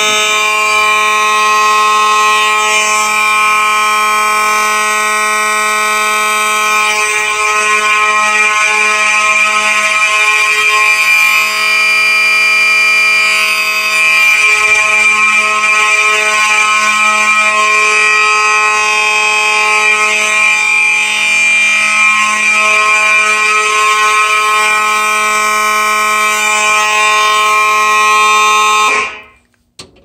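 A Gentex GMS electromechanical horn and a Gentex SHG electronic horn sounding together, continuously, as a steady, loud alarm tone. They cut off abruptly just before the end.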